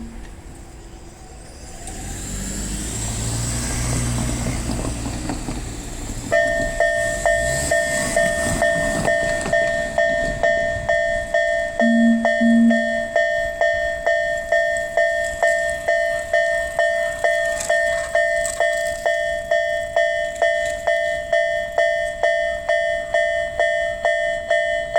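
Japanese level-crossing warning bell starting about six seconds in: an electronic ding repeated steadily about twice a second. Before it, a low rumble swells and fades. About twelve seconds in, a short double low tone sounds.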